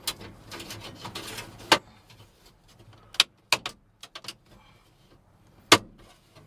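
Sharp clicks and knocks, about five spread out, with a stretch of scraping early on: an aftermarket car radio being worked loose and pulled from its dash opening, its retaining tabs catching.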